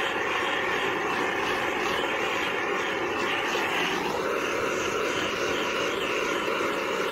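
Handheld gas torch burning steadily with a constant rushing hiss, the burner used to shrink heat-shrink tubing on a medium-voltage cable joint. Its tone shifts slightly about four seconds in.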